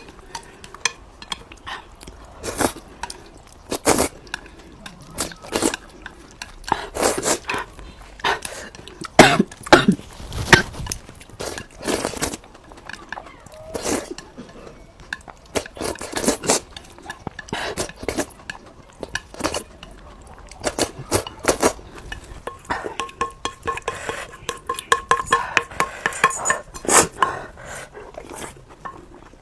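Close-miked eating sounds: utensils clicking and clinking irregularly against dishes, with chewing in between.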